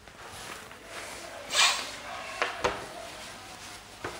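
Handling noises at a whiteboard: a short loud swish about one and a half seconds in, a few light knocks, and a palm rubbing marker writing off the board near the end.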